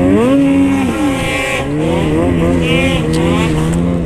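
Ski-Doo 600 RS snowmobile's two-stroke engine revving under throttle, its pitch rising and falling several times, then holding steadier near the end.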